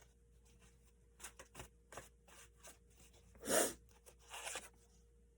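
Tarot cards being handled: a few light taps and slides, a louder rustle about three and a half seconds in, and a smaller flurry just after it.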